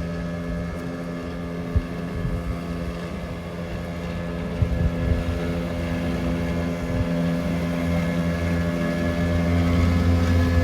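British Seagull two-stroke outboard motor running steadily on a small boat, growing louder toward the end.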